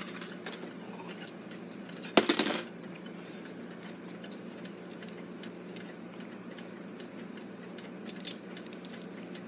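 Small metallic clicks and scrapes of steel tweezers against brass clock-movement plates, pillars and a wire spring as the strike control lever's spring is unhooked. There is a louder clatter about two seconds in and a shorter one near the end, over a steady low hum.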